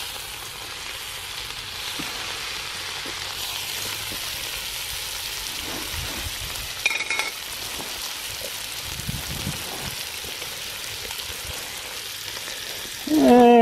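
Bacon sizzling in a hot cast-iron skillet, a steady frying hiss.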